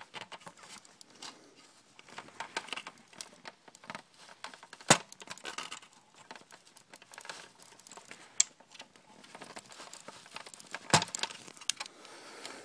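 Small clicks, rattles and light knocks of plastic and metal parts as an opened LCD monitor is handled and its backlight wire connector is pulled loose. There are two sharp knocks, about five seconds in and near the end.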